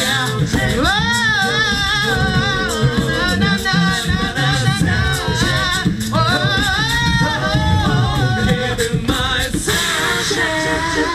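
A cappella group singing: several voices in harmony on wordless vowels over a vocal bass line and beatboxed rhythm, thinning out near the end.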